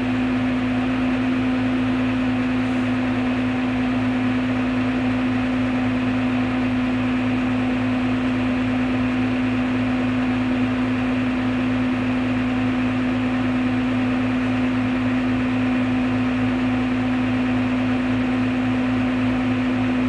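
Steady engine drone heard from inside a tractor's closed cab: a constant hum that holds the same speed throughout, with no change in load.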